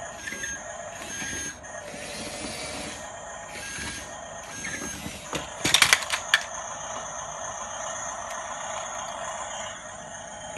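Radio-controlled bulldozer running its small electric drive motors and tracks with a steady mechanical whine and rattle. A quick cluster of sharp clattering clicks comes about six seconds in, the loudest moment, as the machine works against the box.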